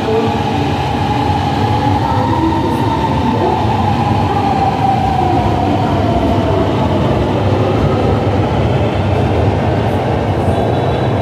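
Hanoi Metro Line 2A train pulling out of an elevated station: a steady rumble with a whine that drops in pitch over several seconds as it moves away.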